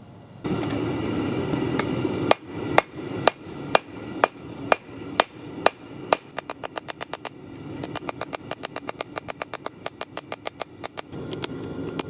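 Hand hammer striking hot 5160 high-carbon steel on an anvil, each blow ringing: slower single blows about two a second at first, then quicker runs of lighter strikes, about four to five a second, over a steady rushing noise.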